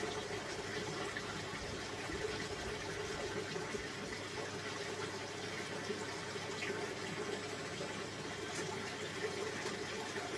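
Steady rushing noise, like running water, with no distinct events.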